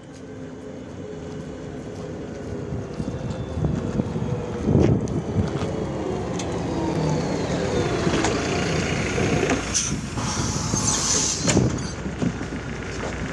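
MAZ 105.065 articulated city bus pulling in to a stop with its engine running and a falling whine as it slows. About ten seconds in comes a hiss of compressed air as the pneumatic doors open, with a few knocks.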